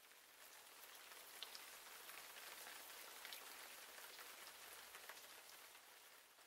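Faint, steady hiss with scattered soft ticks. It fades in at the start and fades out near the end.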